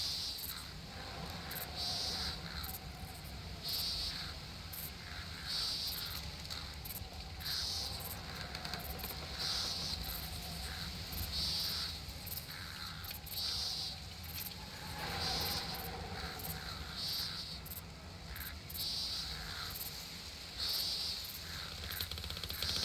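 Summer outdoor nature ambience: a high-pitched chirping call repeating about every two seconds over faint ticking and a low, steady rumble.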